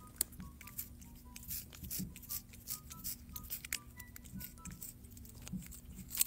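A cat biting and licking at a tortilla chip: a run of faint, irregular crunches and clicks.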